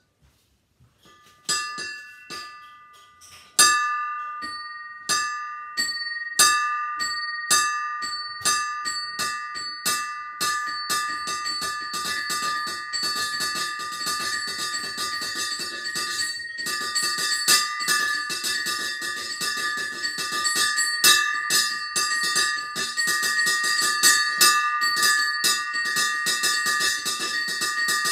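Small bronze bells on a homemade miniature bell tower ringing a Spanish repique. The strokes start about a second in and come faster and denser, several bells of different pitch ringing on and overlapping.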